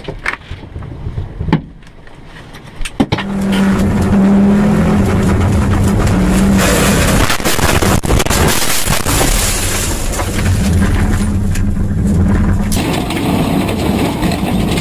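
Rally car engine heard from inside the car: a few seconds of low running with some clicks, then the engine holds steady high revs. For about three seconds in the middle, water rushes and sprays over the car as it drives through it. Near the end another rally car's engine takes over.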